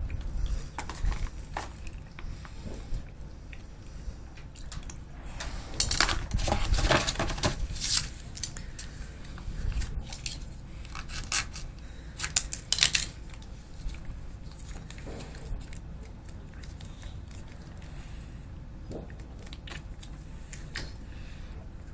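Plastic MRE ration pouches being handled, crinkled and torn open: irregular rustling and tearing, loudest about six seconds in and again around eleven to thirteen seconds.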